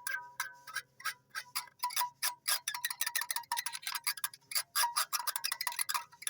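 Hanging metal chimes clinking in quick, irregular strikes, with a light ringing tone underneath; the strikes come thicker and faster from about halfway through.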